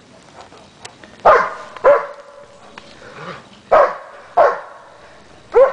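German Shepherd barking five times in short, loud, roughly paired barks: excited play barking.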